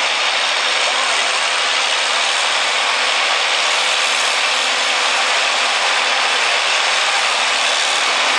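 Tractor engine running steadily as it tows the pulling sled back down the track, heard as a constant, even rush of noise.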